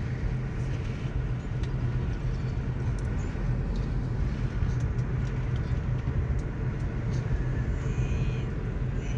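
Steady driving noise heard from inside a moving car on a paved road: a low, even rumble of engine and tyres.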